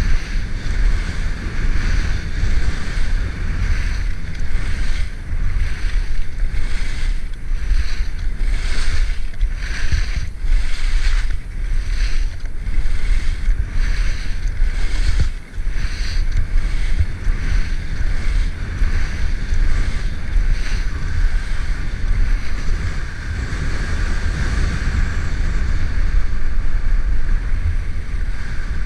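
Wind buffeting the microphone of a camera on a skier moving fast downhill, a loud, steady rumble, with the hiss and scrape of skis running over packed, groomed snow.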